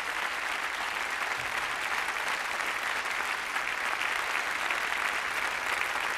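A large audience applauding, a dense steady clapping that neither builds nor fades.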